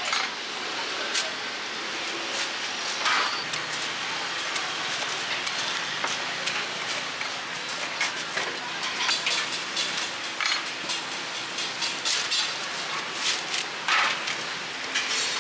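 Cleaver chopping a fried scallion pancake on a wooden cutting board: sharp knocks at uneven intervals, with metal tongs clinking against a steel container, over a steady background hiss.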